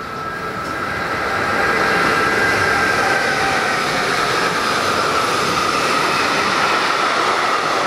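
Freight train hauled by a Class 482 electric locomotive passing, its container and tank wagons rolling by. It grows louder over the first two seconds as the train comes close, then holds a steady loud rumble with a thin high squeal from the wheels on the curve.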